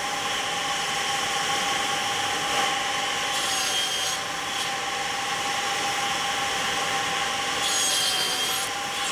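Electric wood-cutting saw running with a steady whine. Twice, about three and a half seconds in and again around eight seconds, a harsher hiss comes in as the blade cuts wood.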